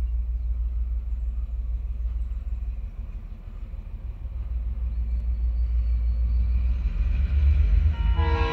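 TasRail DQ-class diesel-electric locomotives hauling an empty ore train, a deep steady rumble that grows louder as they approach. Near the end the lead locomotive's horn sounds, a loud multi-note chord.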